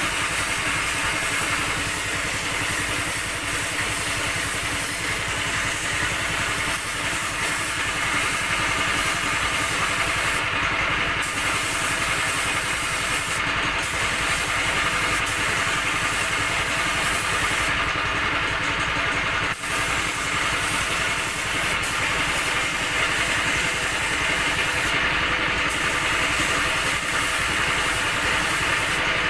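Air compressor running steadily, a hum with a hiss above it whose highest part drops out briefly a few times.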